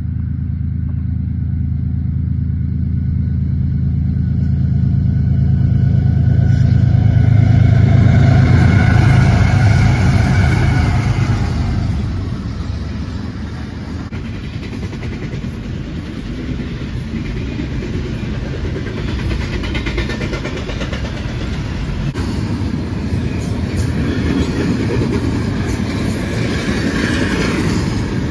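Union Pacific freight train passing: the diesel locomotives' engine hum grows louder and peaks about eight seconds in, then fades as a long string of double-stack container cars rolls by with a steady rumble and rattle of wheels on rail.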